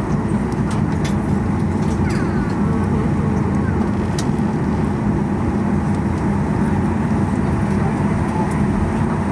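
Steady, low cabin drone inside a Boeing 737-800 on the ground before takeoff, its CFM56-7B engines at idle.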